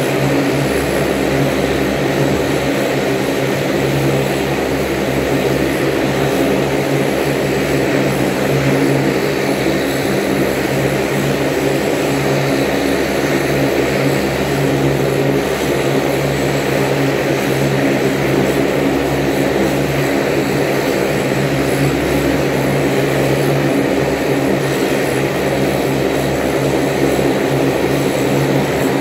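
Saab 340's General Electric CT7 turboprop engines running steadily on the ground during an engine test run: a loud, even propeller drone with a thin high turbine whine above it.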